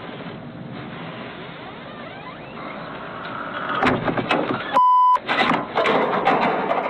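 Noisy, muffled commotion with a few sharp knocks, cut about five seconds in by a short steady beep, like a censor bleep, before the noise resumes.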